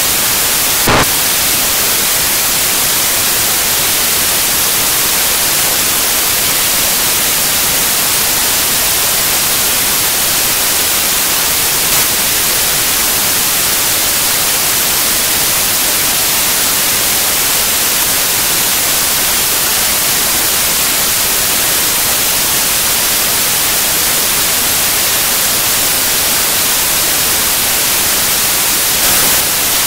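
Loud, steady hiss like radio static or white noise, strongest in the high end, with a brief click about a second in.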